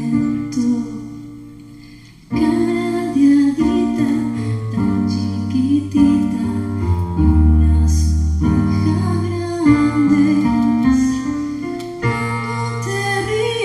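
Electronic keyboard with a piano sound playing sustained chords. A chord dies away over the first two seconds, then new chords are struck from about two seconds in, with a woman's singing voice at times.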